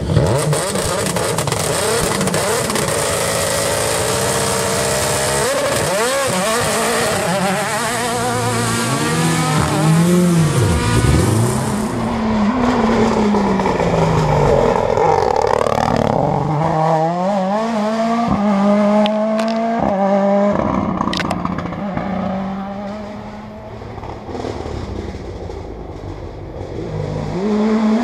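Mini Countryman S2000 rally car's turbocharged four-cylinder engine revving hard, its pitch climbing and dropping again and again through gear changes and lifts for the hairpins. The engine fades about three-quarters of the way through and swells again at the end as the car approaches.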